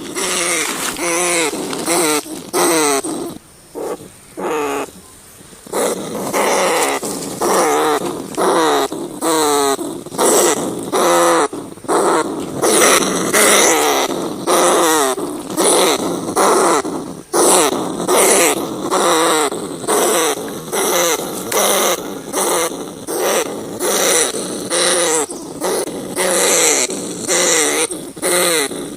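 Rats squeaking and chittering in quick, repeated pitched calls that bend up and down, with a quieter stretch about four seconds in.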